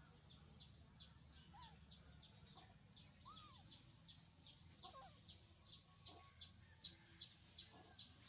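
Faint bird sounds: a short, high chirp repeated evenly about three times a second, with a few softer, lower calls now and then.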